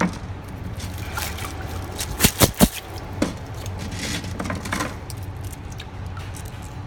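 Water trickling and splashing as freshly chromated screws are rinsed, with three sharp clicks close together a little over two seconds in.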